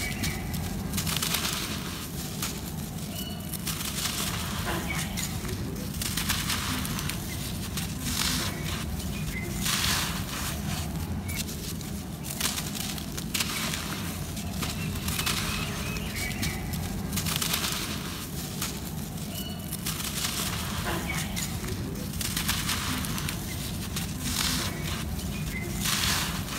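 Clumps of dry red soil crushed and crumbled by hand: gritty crunching and the hiss of dry dirt sifting through fingers, in irregular bursts every second or two, over a steady low rumble.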